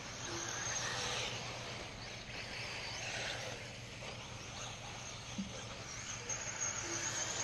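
Radio-controlled 1/8-scale electric buggies running on a dirt track: a hiss of tires and motor whine that swells and fades as the cars pass, over a steady low hum.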